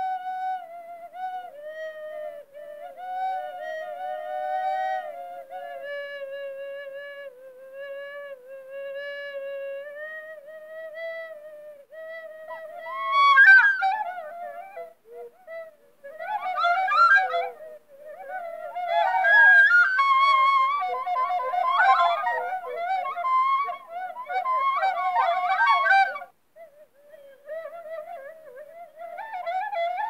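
Solo flute playing slow, long-held low notes with a slight waver, then from about 13 seconds in louder, breathier flurries of quicker notes with short pauses; it stops briefly near the end, then carries on.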